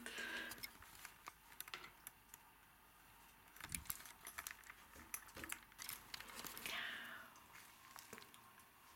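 Faint handling noise: scattered small clicks and taps, with a brief falling squeak about seven seconds in.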